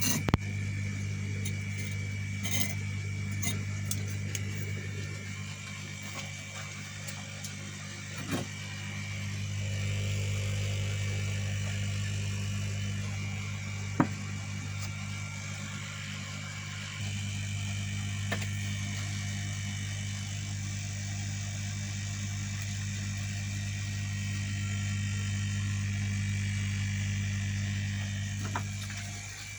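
Electric air blower humming steadily as it feeds a homemade furnace being fired, with a rushing of air through it and a few light knocks and ticks. The hum cuts off just before the end.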